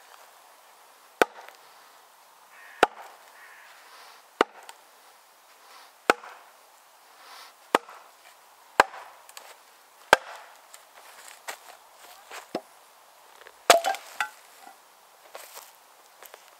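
Heavy wooden blows, about nine at roughly one-and-a-half-second intervals, driving an axe into the end grain of a green ash log to split it. Near the end comes the loudest blow, followed by a quick run of smaller knocks and cracks as the log gives way.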